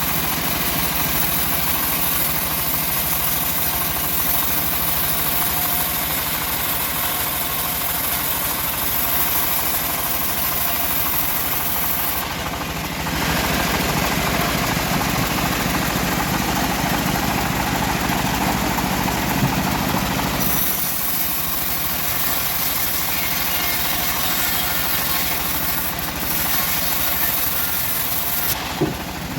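Engine of a homemade bandsaw mill running steadily while milling teak, its sound changing abruptly a couple of times partway through.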